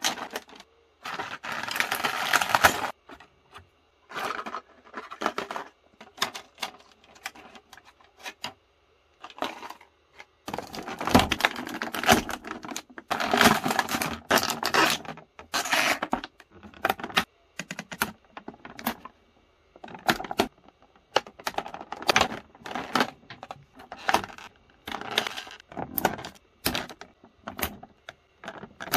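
Handling noise from a boxed pair of action figures: irregular clicks and taps of hard plastic, with longer bursts of rustling about a second in and again from about ten to sixteen seconds.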